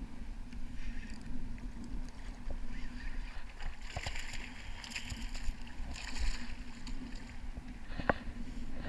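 Water splashing at the foot of shore rocks as a hooked orange-spotted trevally thrashes at the surface, in bursts about four and six seconds in, over a steady low wind rumble on the microphone. A single sharp knock comes near the end.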